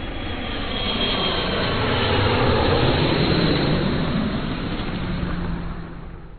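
Jet airliner passing close by, its engine noise swelling to a peak about halfway through and then fading, with a faint high whine early on.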